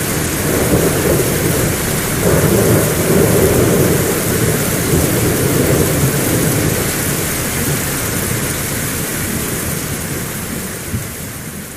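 Heavy rain falling steadily, with a long roll of thunder rumbling through the first half. The whole gradually fades down near the end.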